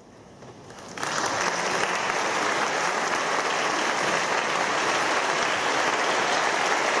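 Audience applause that breaks out suddenly about a second in after a quiet moment and goes on steadily, greeting the end of a choral piece.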